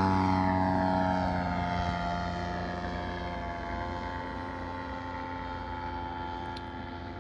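Piper tow plane's engine and propeller running steadily while towing a glider aloft; the pitch drops in the first second or two as it passes, then holds steady as it grows fainter.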